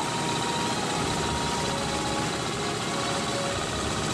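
Small single-cylinder engine of an old hand tractor running steadily, a fast, even chugging with no change in speed.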